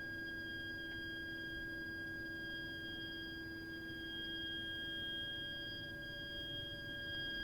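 Shrill, continuous high-pitched whine from a heating system's heat interface unit (HIU) and its pipework: one steady pitch with higher overtones and a lower hum beneath, not wavering. It is an abnormal fault noise that runs for hours even when no hot water or heating is being used.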